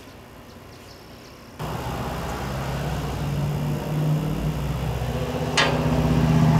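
A motor starts about a second and a half in and runs with a steady low hum, growing louder; a sharp click near the end.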